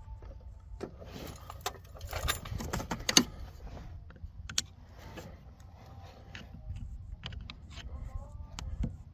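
Metal clinks and rattles of a wrench and battery cable terminals as a battery ground cable is loosened and taken off, with a quick cluster of clicks about two to three seconds in and scattered single clicks after.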